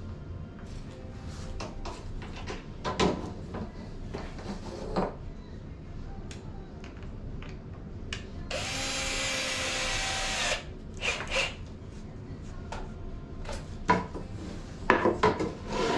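Wooden planks and parts being handled, with scattered knocks and clatters, and a power drill running steadily for about two seconds around the middle.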